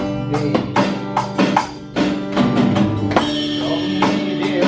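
Acoustic guitar strumming chords while an electronic drum kit keeps a steady beat, with a brief drop in loudness about two seconds in.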